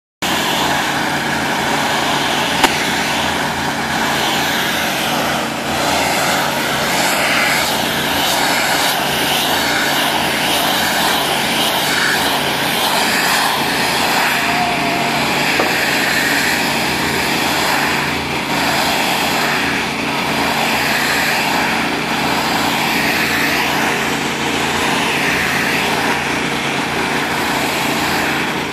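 Trailer-mounted hot-water pressure washer's 479cc Vanguard twin-cylinder gas engine running steadily under load, with the hiss of the high-pressure spray on the pavement. A single sharp knock about two and a half seconds in.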